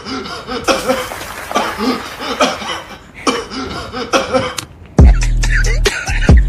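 A person's short coughs and chuckling laughter, with music faintly under them. About five seconds in, a loud music track with a heavy bass beat starts.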